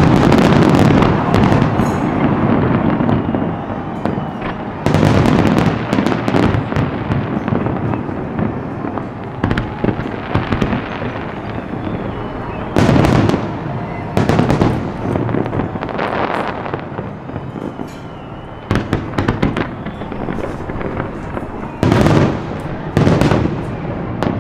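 Fireworks display: aerial shells bursting in loud bangs every one to three seconds, with dense crackling between the bangs.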